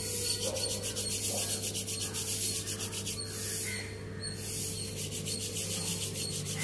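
A fast run of scratchy rasping strokes, about eight a second for roughly three seconds, then again more faintly after a short pause, over a steady low hum.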